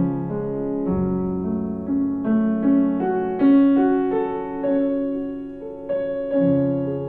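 Background piano music: slow, sustained notes and chords.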